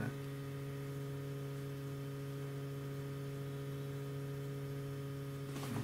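Steady electrical mains hum, a low drone with a few fainter higher overtones, over a faint hiss.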